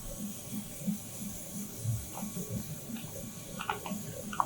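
DTF hot-melt adhesive powder being poured into the powder shaker machine's box: a soft, uneven rustling pour, with a few light clicks in the second half.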